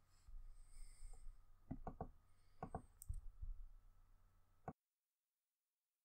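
A few faint clicks and knocks over a low rumble, like handling noise close to a microphone in a small room. The audio then cuts off abruptly to dead silence about three-quarters of the way through.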